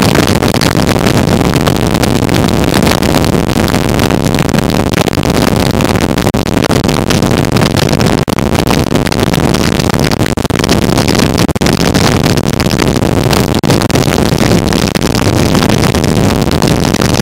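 Motorcycle engine running steadily at road speed, mixed with loud wind rushing over the microphone.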